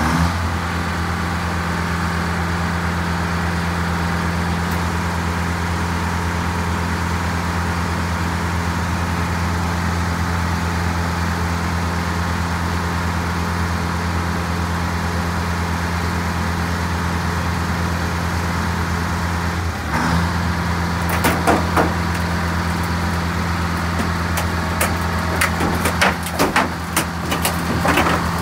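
Car crusher's engine running steadily while its press plate comes down on an old Ford pickup. From about 21 seconds in, sharp cracks and crunches as the cab's sheet metal starts to give way under the plate.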